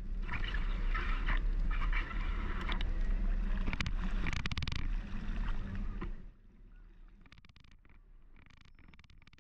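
Traffic on a rain-flooded street, water sloshing under passing wheels over a low rumble; about six seconds in it drops away to quiet street ambience with faint ticks.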